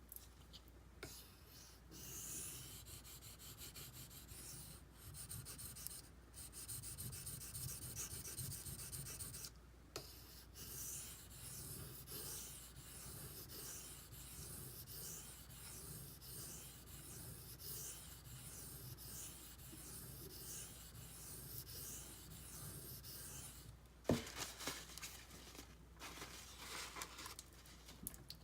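Benchmade Griptilian's D2 steel blade being stroked by hand across a sharpening stone: a repeated hissing scrape, stroke after stroke, with brief pauses. A sharp knock near the end.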